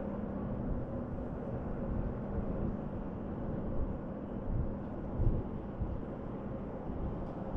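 Steady low outdoor rumble with a faint hum and a few soft low thumps.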